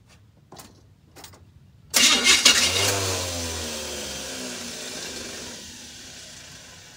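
A few faint clicks, then about two seconds in the GMC motorhome's engine, on its newly fitted starter, cranks briefly and fires. It runs on with its pitch gliding and its sound falling away steadily.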